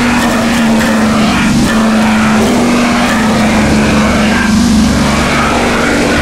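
Harsh blackened gorenoise: a dense, loud wall of distorted noise over a steady low tone, with a deeper drone coming in about halfway through.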